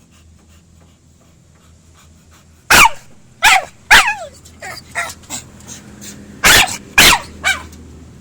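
Pit bull giving a run of short, loud barks and yelps, each sliding down in pitch. They start about three seconds in, with the loudest near the start of the run and again near the end.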